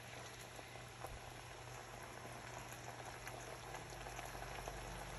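Hosta leaves cooking in a little water in a frying pan: a faint steady bubbling sizzle with tiny pops, growing slightly louder as the pan comes up to temperature.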